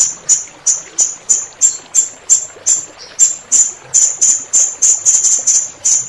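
Blue-crowned hanging parrot (serindit) calling: a rapid series of short, shrill, very high-pitched notes, about three a second, with a brief break about three seconds in. Faint running water underneath.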